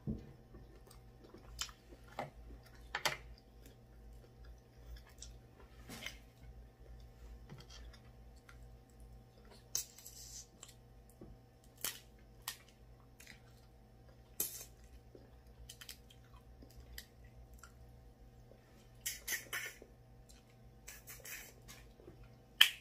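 Close-up eating sounds: chewing and wet mouth clicks, with brief crackles as shellfish shell is peeled by hand. A sharp click near the end is the loudest, all over a low steady hum.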